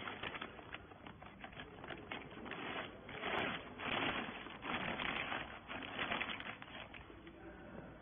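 Thin clear plastic bag crinkling and rustling in quick irregular crackles as it is pulled over a compressed bale of rags, loudest in the middle.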